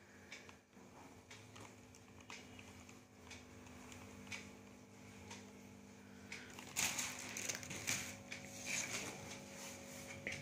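Thin paper fighter kites being handled: faint soft rustles and ticks, then louder crinkly paper rustling from about seven seconds in as the kites are shifted.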